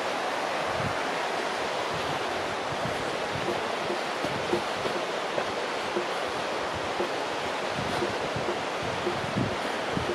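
Steady rush of the Little Firehole River flowing nearby, an even unbroken noise.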